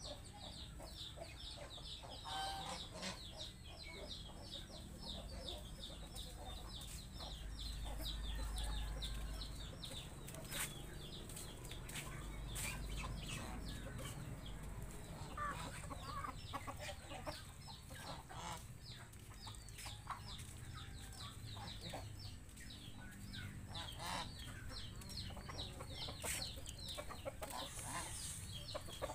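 Farmyard chickens clucking, over a fast, high-pitched chirping that runs without a break, with scattered sharp clicks.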